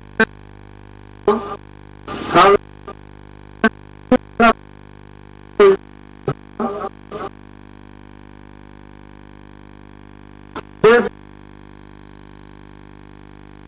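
Steady electrical mains hum, with about a dozen short, loud snatches of a voice cutting in and out over it, mostly in the first half and once more near the end.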